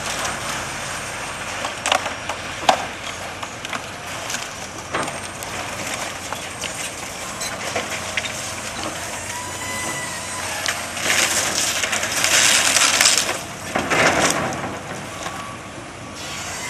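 Demolition excavator's hydraulic crushing jaws breaking up building debris, with sharp cracks and knocks. About two-thirds of the way through comes a louder stretch of crushing and grinding, followed by one more short burst.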